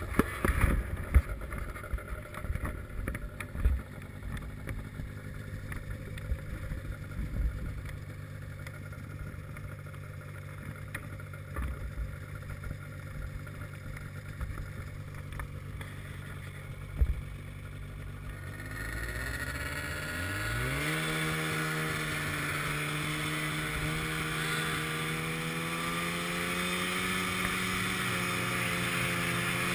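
Polaris 600 RMK snowmobile's two-stroke engine idling steadily, with scattered thumps over it. About two-thirds of the way in it revs up with a rising pitch, then runs at a higher steady pitch as the sled gets under way.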